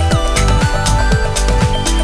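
Electronic background music with a steady beat: kick drum, cymbal hits and held synth notes, one of them sliding down in pitch at the start.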